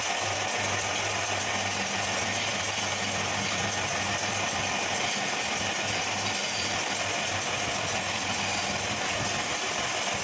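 Wood lathe running with a steady motor hum while a hand-held turning chisel cuts a spinning wooden spindle, giving an even, continuous scraping hiss.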